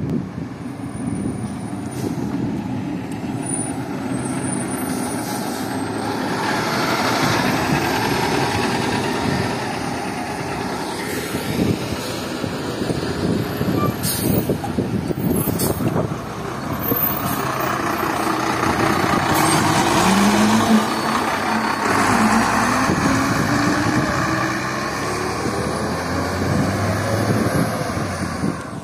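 A 2011 MCI E4500 coach, then a 1994 Blue Bird All American school bus with a Cummins C8.3 diesel, drive past at close range with their diesel engines running as they pull away. Two short air hisses come about halfway through, and later an engine climbs steadily in pitch as a bus accelerates.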